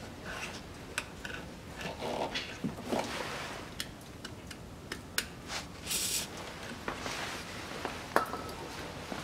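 Short hiss of an aerosol can of WD-40 penetrating spray, about six seconds in, aimed at the rusty nuts of an exhaust pipe joint to loosen them. Light metallic clicks and taps sound here and there.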